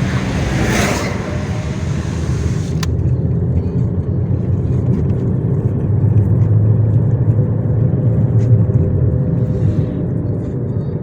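A Nissan Almera Classic driving with a steady low drone from a worn front hub bearing (the front left one), growing stronger about halfway through. A hissing rush sits over it for the first couple of seconds, then stops abruptly.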